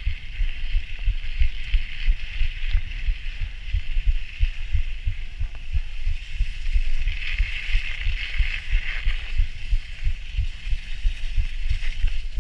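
Wind buffeting a body-mounted action camera's microphone while a bicycle is ridden, a constant low rumble that gusts several times a second. A steady higher hiss runs above it, stronger for a couple of seconds past the middle.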